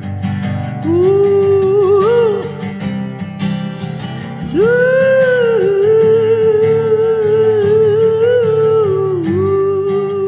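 Gospel chant music: a wordless vocal line holding long notes over strummed acoustic guitar and a steady low chord bed. The melody enters about a second in, pauses briefly near the middle, then comes back on a higher note.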